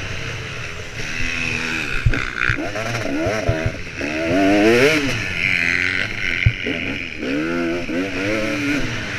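Motocross bike engine revving up and falling back again and again as the throttle is opened and closed, with wind rushing over the bike-mounted camera. A few sharp knocks come through, about two, three and six seconds in.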